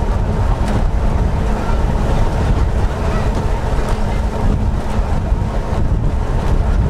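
Snaefell Mountain Railway electric tramcar running along the track, heard from on board: a steady heavy rumble of wheels and motors with a hum under it, wind buffeting the microphone, and a few sharp clicks from the rails.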